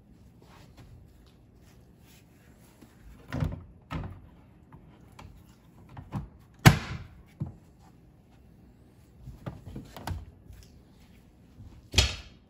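Hard plastic knocks and clicks as a Garmin EchoMap UHD 93SV display is fitted onto its quick-release console mount, with a sharp click about six and a half seconds in and another loud knock near the end.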